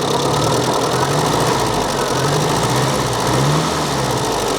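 Carbureted car engine idling just after starting, its choke stuck on; the idle speed wanders, rising and falling a little. The owner feels the rough running points to carburetor trouble.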